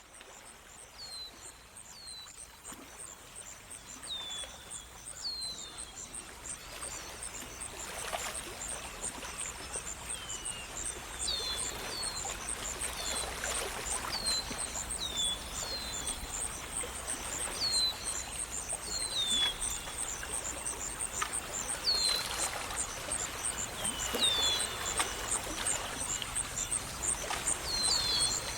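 Nature ambience of birds chirping over running water: many short falling chirps come and go above a steady, fast, high pulsing trill, and the whole grows gradually louder.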